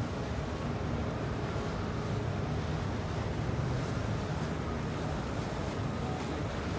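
Steady low rumble of a motorboat cruising past, with the wash of water and wind noise on the microphone.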